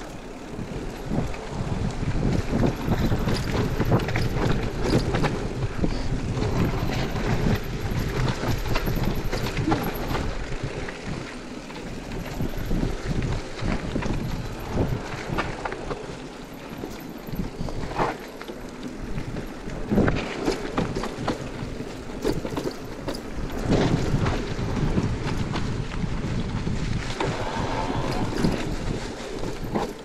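Cube Stereo Hybrid electric mountain bike riding over a leaf-covered dirt trail: tyres rolling over dry leaves and ground, with many sharp clicks and knocks of the bike rattling over bumps. The noise swells and eases as the trail goes.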